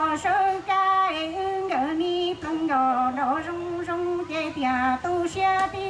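A woman singing a Hmong song into a microphone through a PA, holding long notes with smooth bends in pitch, over quiet backing music.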